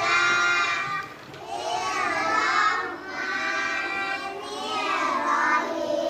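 Young children singing a song in several sustained phrases.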